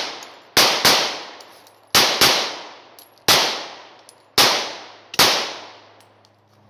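Kahr CW45 .45 ACP pistol firing seven shots: two quick pairs, then three single shots about a second apart, each sharp report followed by a fading echo.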